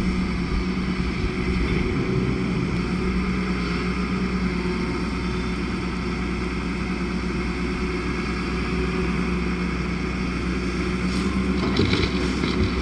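Diesel engine of heavy earthmoving machinery running steadily under load, with a few short clanks near the end.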